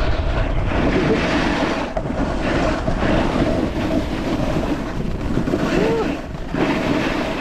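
Snowboard sliding over snow, a continuous scraping hiss, with wind buffeting the microphone at riding speed; the level dips briefly a couple of times.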